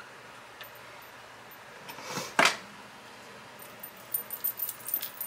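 Paper crafting pieces being handled while a piece is glued down: a short rubbing swipe about two seconds in that ends in a sharp tap, then a quick run of light ticks and crinkles near the end.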